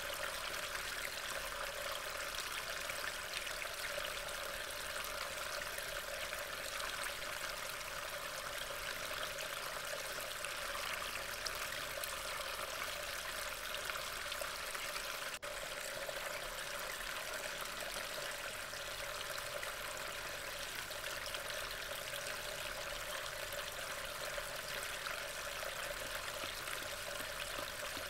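Steady rain falling on the woodland floor and leaves, picked up by a trail camera's microphone as a continuous even hiss. It breaks off for an instant about fifteen seconds in.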